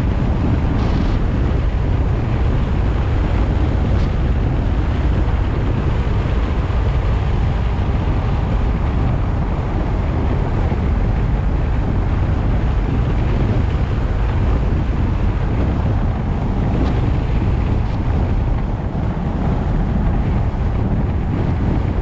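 Wind buffeting the microphone of a GoPro on a moving car: a steady, loud, low rumble.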